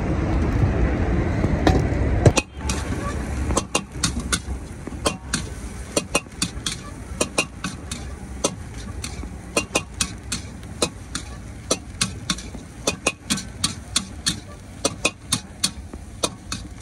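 Metal spatula clanking and scraping against a large wok as egg fried rice is stir-fried and tossed, in sharp, irregular strikes about two or three a second. The first couple of seconds are louder street noise that stops abruptly.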